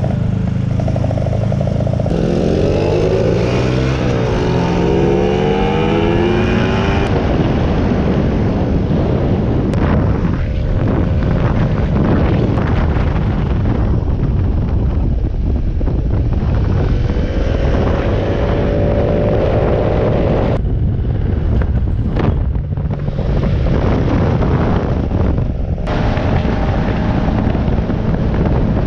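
Small motorcycle engines running, their pitch rising and falling as they rev, with two engine tones crossing each other for the first few seconds.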